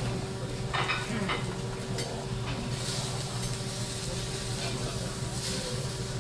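Vegetables sizzling on a hot teppanyaki steel griddle as they are pushed about with a metal spatula and fork, with a few clinks of metal on the plate about a second in and louder bursts of sizzle about three and five and a half seconds in. A steady low hum runs underneath.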